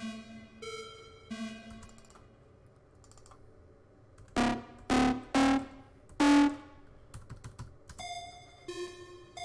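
Single synthesizer notes played one at a time, short bell-like tones, to find the key of a sample. About four seconds in come four much louder pitched hits, and more short notes follow near the end.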